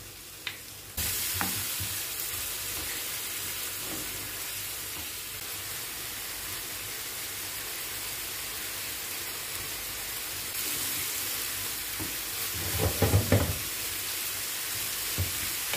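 Chicken frying in oil on a tawa: a steady sizzle that jumps up about a second in as yogurt hits the hot pan, with a wooden spatula stirring and scraping the chicken, loudest a couple of seconds before the end.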